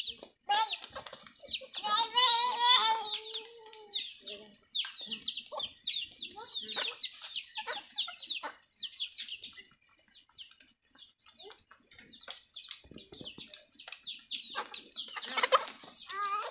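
Free-ranging domestic chickens calling, with a run of many short high chirps and a louder, drawn-out call about two seconds in.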